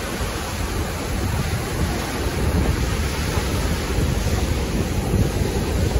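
Lake Huron surf breaking steadily on the beach at high tide, the strong waves washing in, with wind rumbling on the microphone.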